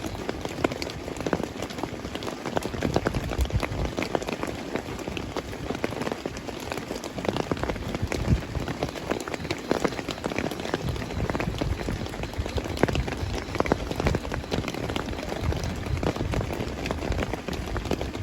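Heavy rain falling steadily, countless drops pattering and ticking on surfaces.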